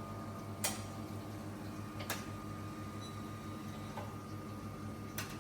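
Victoria Arduino Eagle One espresso machine running while pulling a shot: a steady hum, with a few sharp clicks, the loudest a little under a second in.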